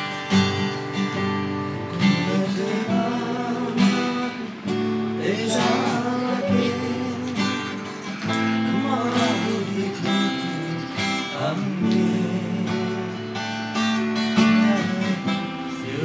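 Acoustic guitar with a capo on the neck, strummed in a run of chords.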